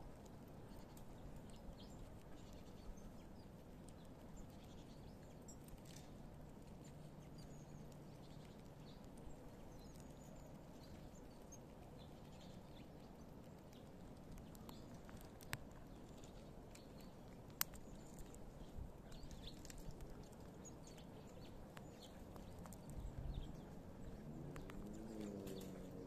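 Squirrel gnawing nuts: faint, scattered crunching clicks, with a couple of sharper cracks in the second half, over a steady low rumble.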